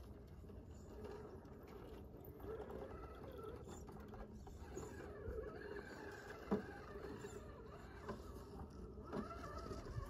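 Small electric motors and geared drivetrains of radio-controlled rock crawlers whining faintly, the pitch wavering up and down as they crawl over rock. There is a sharp knock about six and a half seconds in.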